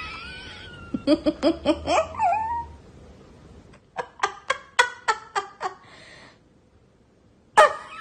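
Boston Terrier making runs of short, pitched yelping whines, several a second, in two bursts with a pause between and a third starting near the end, after a wavering whine at the start.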